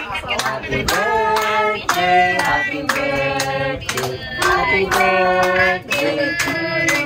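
People singing together with hands clapping steadily along.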